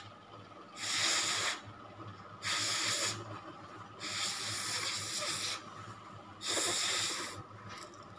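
A person breathing close to the microphone: four hissing breaths of about a second each, evenly spaced.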